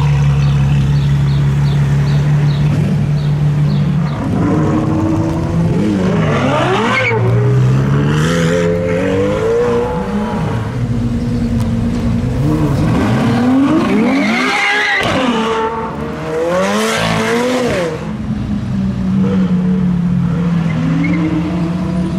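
Ferrari 812 N-Largo's V12 through its Novitec exhaust, running steadily at first, then revved several times with the pitch rising and falling before it settles back to a steady run near the end.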